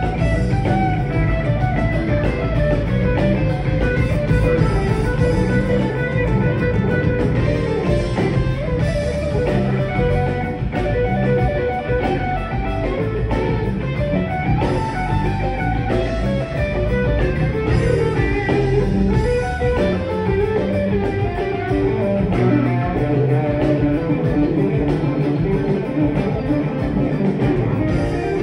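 A live rock band playing: drums, bass guitar, electric guitars and keyboards, with a guitar carrying a wandering melodic lead line over the band.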